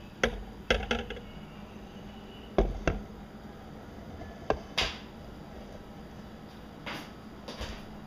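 A series of irregular knocks and taps, like things being handled in a kitchen, the loudest in the first three seconds.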